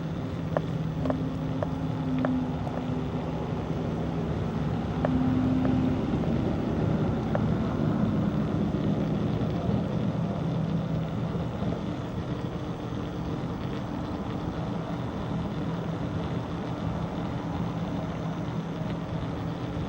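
A motor running with a steady hum, over wind and rolling noise. A few light clicks come in the first seven seconds.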